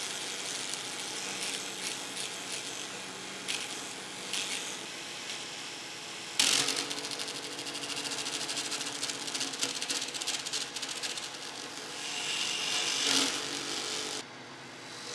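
Small table saw running with a square paper blade fitted. About six seconds in there is a sharp loud hit, then a fast rattling flutter as the blade cuts into a tongue depressor. The sound drops abruptly near the end.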